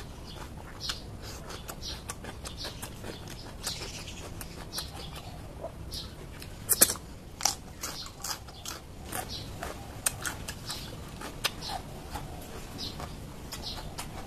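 A person chewing crunchy raw vegetables close to the microphone, with a steady run of crisp crunches and mouth clicks, loudest about halfway through.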